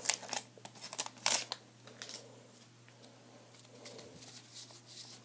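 Hands handling trading cards and their packaging: a few brief crisp rustles in the first second and a half, then soft, faint shuffling.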